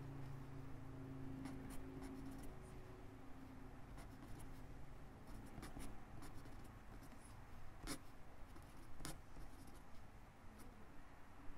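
Quiet pen writing on lined notebook paper: a soft scratching of the tip moving through cursive strokes, broken by small ticks as the pen touches down and lifts, two sharper ticks near the end.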